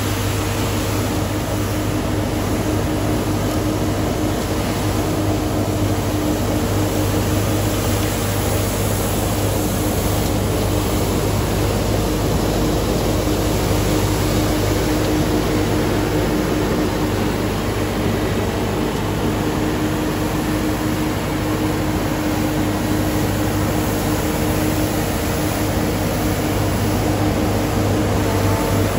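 Mathieu Azura compact street sweeper running steadily, its engine and hydraulics humming while the rotating side brushes scrub the pavement with a continuous hiss.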